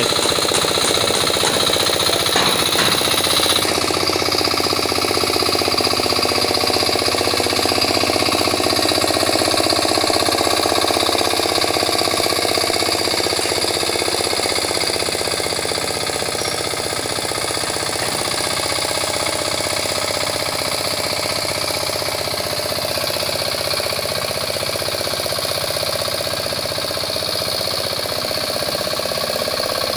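Two-wheel hand tractor's engine running steadily under load as it pulls a harrow through a flooded rice paddy.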